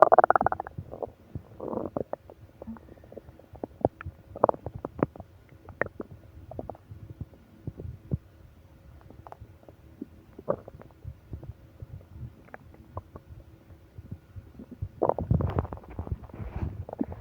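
Human stomach growling: irregular gurgles and small pops, with a louder rumble right at the start and another about fifteen seconds in.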